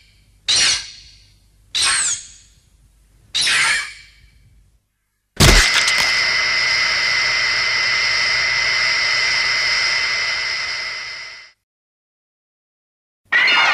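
Homemade Mothra creature calls: three short, high shrieks about a second and a half apart, then, after a sharp hit, one long held high screech lasting about six seconds that cuts off. Another short shriek starts near the end.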